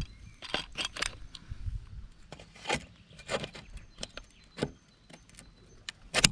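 Irregular sharp clicks, knocks and rattles from a pool net on its pole being handled, about a dozen over the few seconds, the loudest near the end.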